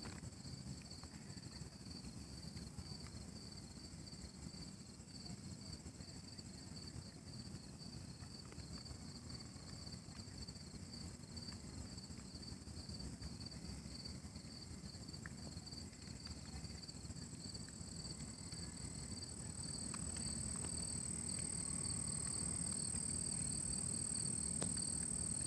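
A steady, dense crackling and popping like rice crispies or rain, from an unseen source in trees and a bank. A high, rapidly pulsing chirp and a steady high whine run above it, the whine growing louder in the last third.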